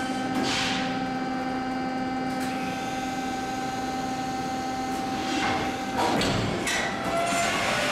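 Hydraulic press brake bending a 20 mm steel plate in a V-die: a steady hum from the machine under load, with brief crackles as the bend forms. About six seconds in the hum cuts off and a few knocks and clanks follow.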